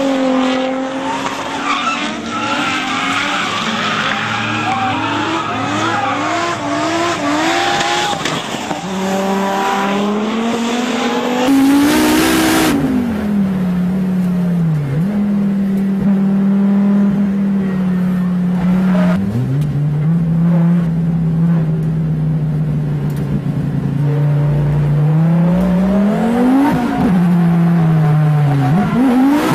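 A drift car's engine revving up and down while the tyres squeal in a slide. About eleven seconds in the sound switches to inside the car, where the engine holds a steady pitch that drops and climbs again a few times at gear changes.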